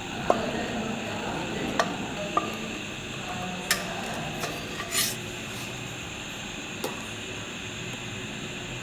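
Kitchen utensils making a few light clinks and scrapes, spread out over a steady background hiss.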